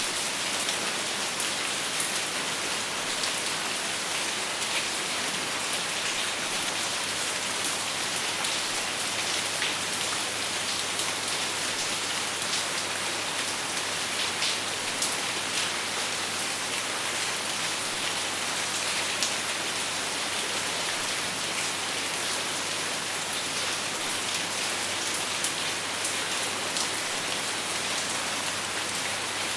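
Steady rain falling, a dense even hiss with many small drop ticks, no thunder.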